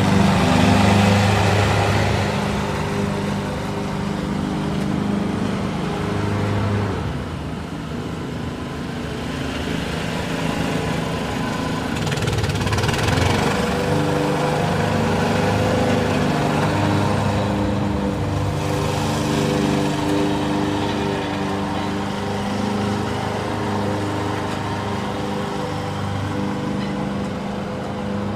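Lawn mower's small engine running steadily, its low note wavering slightly now and then.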